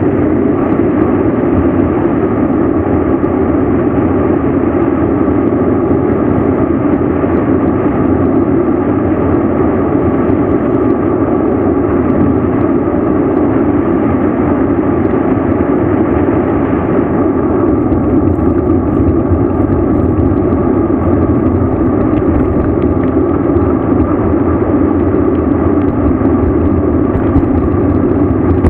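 Steady, loud rushing noise of a mountain bike ride downhill: wind and road noise, unbroken throughout.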